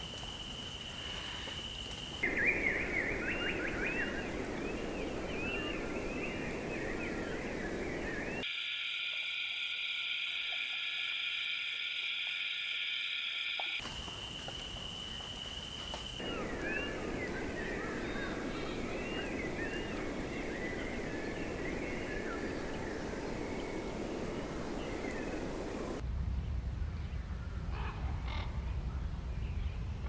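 Spliced nature-sound soundtrack that cuts abruptly between segments. It holds a steady high trill, a rain-like hiss under many quick chirping animal calls, a loud high buzzing chorus for about five seconds in the middle, and a low hum near the end.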